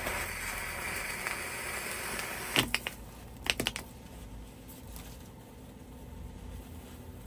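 Igniter primer on the end of a visco fuse flaring with a fizzing hiss that dies away after about two and a half seconds. It is followed by a sharp click and then a quick run of three or four clicks.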